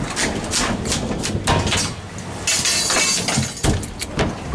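Rapid clattering knocks and clinks of hard objects, with a short rush of hissing noise about two and a half seconds in.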